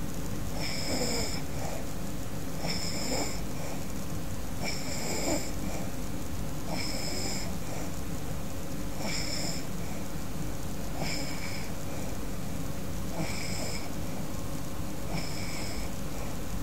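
A woman snoring in her sleep, with a wheezy snore that comes regularly about every two seconds.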